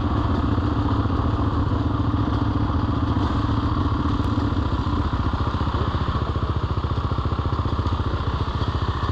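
Yamaha TT-R230 dirt bike's single-cylinder four-stroke engine with an aftermarket Big Gun exhaust, running at low, steady revs as the bike rolls slowly on a trail. The pitch of the engine note shifts slightly about five seconds in.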